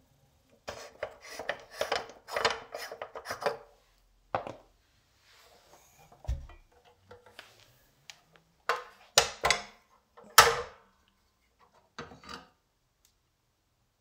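Clicks, knocks and clatters of a Hoover 402 vacuum cleaner's parts being handled with the motor not running: the hose fitting being taken off and the metal wand moved and set down. A quick run of clicks comes first, a dull thud about six seconds in, and the sharpest knocks near the middle and toward the end.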